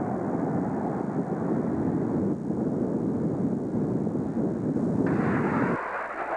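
Jet noise of an A-4 Skyhawk flying past, a loud steady rush with a deep rumble. About five seconds in it turns brighter and hissier, and just before the end the deep rumble drops away.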